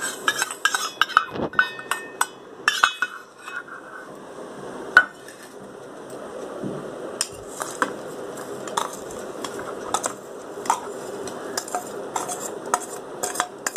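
A metal spoon clinking and scraping against stainless-steel bowls and a steel jar as roasted black sesame seeds and jaggery are tipped and scooped in. Many sharp, ringing clinks come at uneven intervals, with soft scraping and sliding between them.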